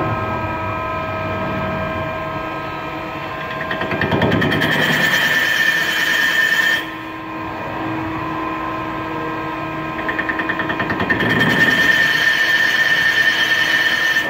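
Mazak CNC lathe spinning a crankshaft, its spindle drive running with a steady whine. Twice the tool cuts into the crankshaft for a few seconds, adding louder cutting noise topped by a high steady squeal. The first cut starts about four seconds in and stops abruptly; the second runs through the last few seconds.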